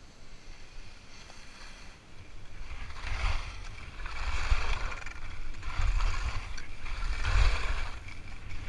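Skis scraping and carving across packed, groomed snow through a series of turns, a swell of hiss about every second and a half from about three seconds in, with wind rumbling on the microphone.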